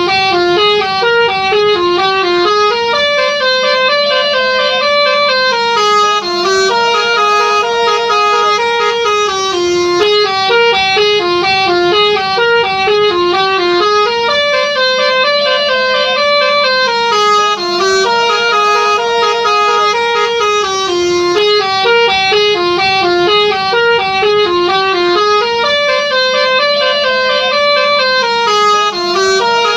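Indonesian 'telolet' multi-tone bus horn playing a long, winding melody of held, stepped notes. The same phrase comes round about every eleven and a half seconds.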